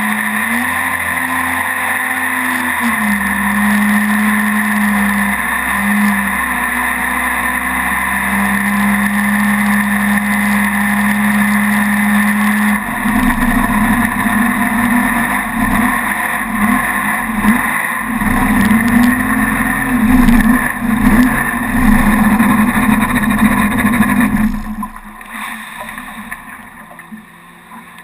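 Mini jet boat's engine running steadily under way, then turning rough and uneven, with its pitch wavering, about halfway through. Near the end the engine noise falls away sharply.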